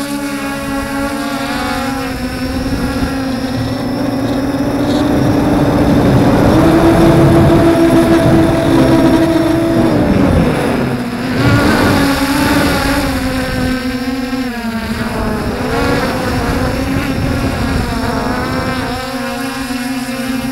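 Electric motors and propellers of a camera drone in flight: a steady whine whose pitch drifts up and down as the motors change speed. It climbs in pitch and gets louder for a few seconds in the middle, then wavers for a while.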